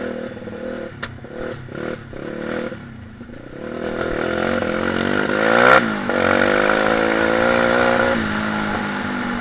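Stomp KZR 140cc pit bike's four-stroke single-cylinder engine under way: uneven on-and-off throttle over the first few seconds, then revs climbing from about four seconds in, a brief drop as it shifts up, steady high revs, and easing off near the end.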